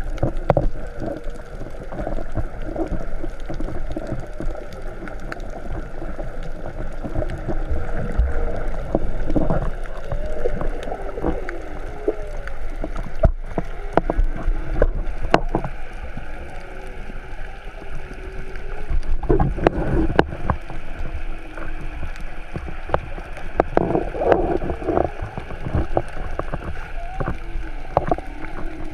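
Underwater sound heard through an action camera's waterproof housing: a steady muffled rumble of moving water with scattered sharp clicks and crackles, and a few faint wavering tones that slide up and down.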